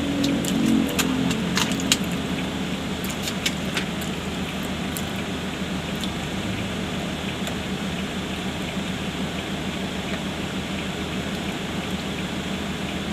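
A car engine idling steadily, a constant low hum heard inside the cabin, with a few light clicks in the first four seconds.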